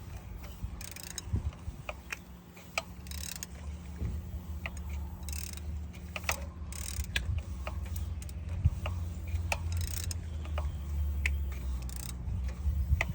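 Nissan 1.8 L engine being turned over slowly by hand from the crankshaft (harmonic balancer) bolt, giving a run of irregular mechanical clicks and ticks from the tool and the turning engine, over a low hum.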